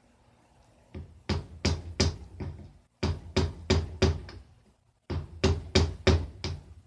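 Hammer blows on the engine, struck in three quick series of about four or five sharp knocks each, with a short pause between series.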